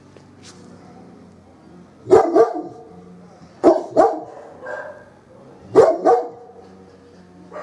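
German Shepherd dog barking: three loud double barks starting about two seconds in, each pair about a second and a half apart, with a fainter single bark between the second and third pairs and another bark right at the end.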